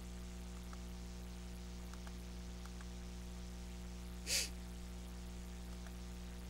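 Steady electrical hum of the recording setup, with a few faint clicks in the first three seconds and a short rush of noise about four seconds in.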